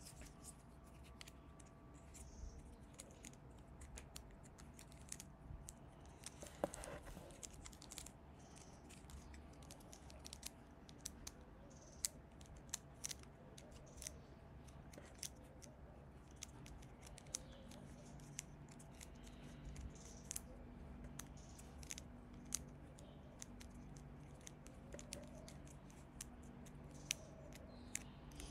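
Quiet, irregular small clicks and scratches: two kittens' claws and paws scuffling on asphalt as they play-wrestle, over a faint steady hum.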